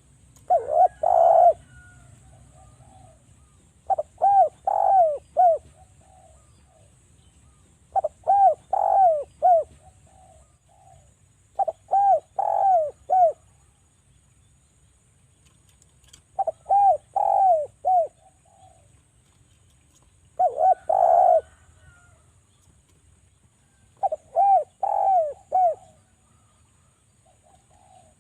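Javanese derkuku (spotted dove) cooing: a phrase of three or four short coos that each fall in pitch, repeated about every four seconds.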